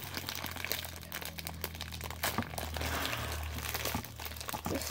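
Small clear plastic bag crinkling as fingers pick and pull at it, trying to tear it open, with irregular crackles throughout. A steady low hum runs underneath.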